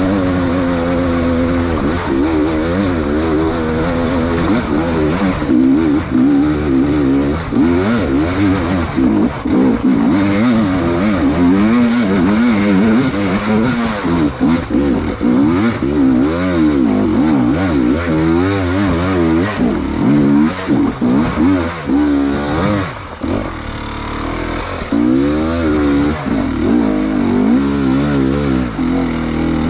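Enduro dirt bike engine revving up and down constantly as the throttle is worked over rough ground, with clattering and scraping from the bike. The revs drop briefly a little past the middle before picking up again.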